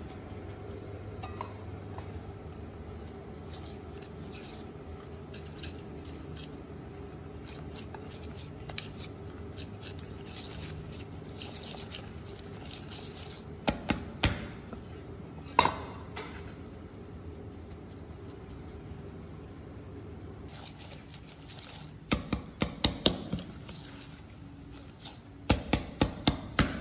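Wire balloon whisk clinking and scraping against a stainless steel mixing bowl as thick egg-yolk and flour batter is stirred. A low steady hum fills the first half, then come short runs of sharp clinks about halfway, and faster runs of clinks near the end.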